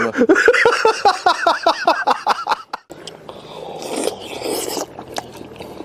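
A man laughing in quick repeated bursts for the first half. After a short break, a man slurps and chews a hot fish slice from a bowl.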